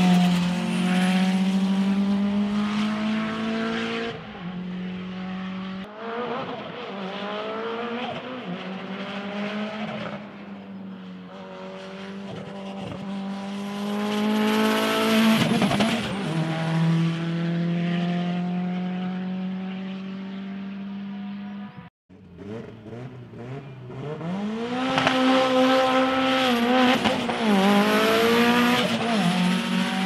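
Toyota Celica race car's engine revving hard as it drives past several times, its pitch climbing through the gears and dropping back on shifts and lifts, with two abrupt cuts between passes.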